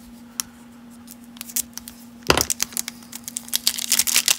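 Cellophane wrapper of a 1992 Topps cello pack being torn open. It is quiet with a few light ticks at first, then there is one sharp rip a bit over two seconds in, followed by dense crinkling of the plastic as the wrapper is worked off the cards.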